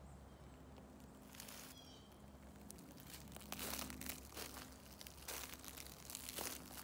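Footsteps crunching and rustling through dry leaves and brush off the trail, irregular and coming more often in the second half.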